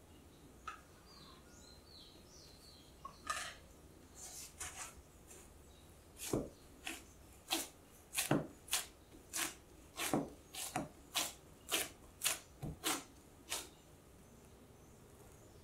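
Gloved hands pressing and patting risen bread dough flat on a floured silicone mat after its first rise. A few faint rustles at first, then a run of short soft pats, about two a second, through the middle of the clip.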